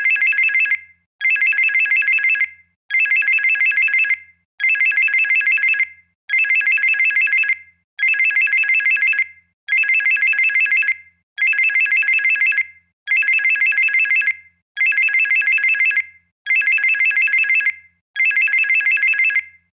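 Electronic phone ringtone: a high-pitched, rapidly trilling ring in bursts of a bit over a second, repeating about every 1.7 seconds.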